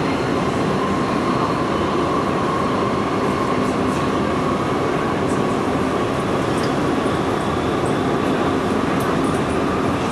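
Underground metro train running at speed through a tunnel, heard from inside the train: a steady rumble of wheels on rails with a steady whine laid over it and a few faint light ticks.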